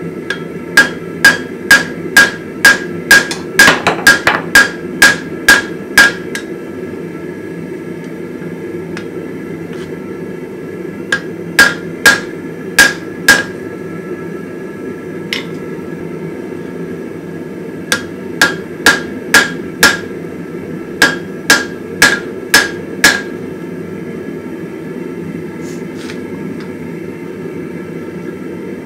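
Hand hammer striking a red-hot mild steel bar on an anvil in four runs of blows, about two a second, each blow ringing briefly. A steady low hum runs underneath.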